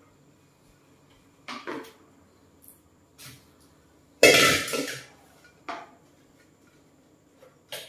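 Stainless steel mixing bowl set down on a kitchen countertop with one loud clank about four seconds in, between a few lighter knocks of things being handled on the counter.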